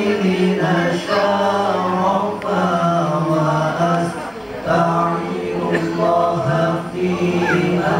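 A group of voices chanting memorised Arabic verses in unison to a slow melody, holding long notes with short pauses between phrases.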